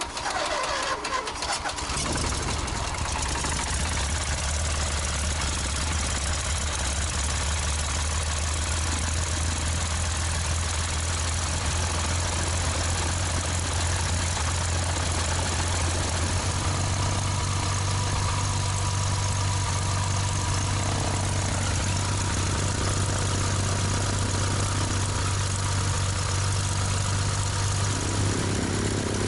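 1956 Cessna 172's six-cylinder Continental O-300 aircraft engine being started: a short crank on the starter, catching about two seconds in, then running steadily. About halfway through, the revs step up, and it runs on at the higher speed.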